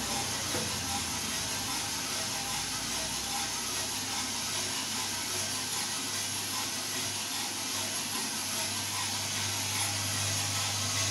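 Drum coffee roaster running mid-roast with a charge of beans: a steady hiss and whir from its gas burner, airflow fan and geared drum motor. A low hum grows louder near the end.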